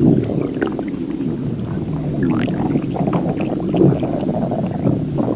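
Stomach growling and gurgling: a continuous low, bubbling rumble with short squeaky gurgles rising above it, one clearly rising about halfway through.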